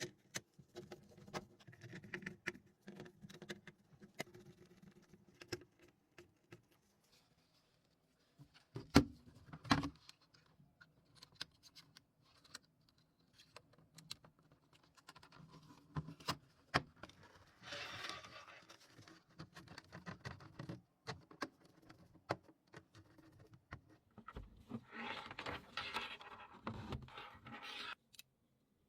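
Hands handling small hard plastic keyboard parts: scattered clicks and taps, a louder knock about nine seconds in, and rattling, scraping stretches about eighteen seconds in and again from about twenty-five to twenty-eight seconds.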